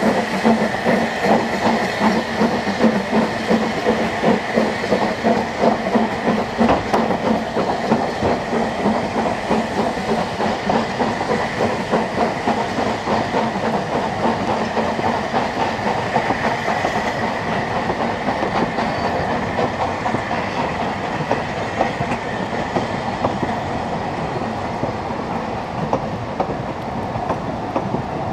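Double-headed narrow-gauge steam locomotives, the Double Fairlie James Spooner with Blanche, pulling a passenger train away: rapid exhaust beats and steam with the carriages clattering on the rails, fading as the train draws off.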